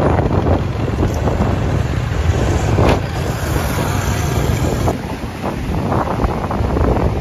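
Loud, steady wind noise buffeting the microphone, with a deep rumble underneath.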